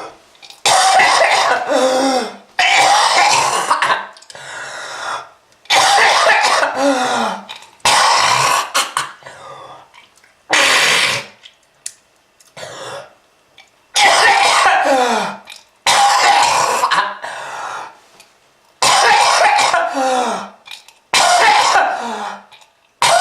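A person coughing hard in about ten separate fits, each a second or so of harsh, hacking coughs that sink in pitch, with short gaps to draw breath between them. It is presented as a smoker's cough.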